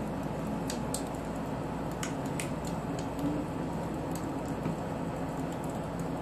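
Steady background hum with a few faint, light clicks scattered through it.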